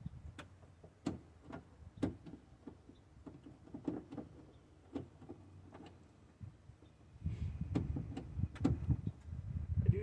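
Scattered light clicks and taps of hands working a VW Mk4 GTI's door handle and its wire release cable inside the open door. From about seven seconds in, the handling gets busier and louder.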